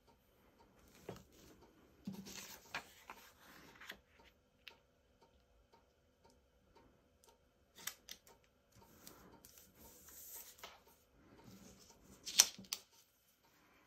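Hands handling and pressing cardstock and vellum on a craft mat: faint, scattered paper rustles and light taps, with a sharper click near the end.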